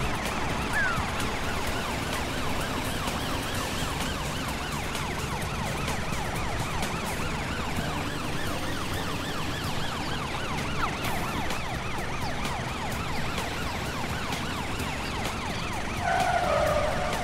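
Cartoon emergency-vehicle sirens wailing in fast, repeated up-and-down sweeps over vehicle engine noise. Near the end a brief, steady, louder tone cuts through.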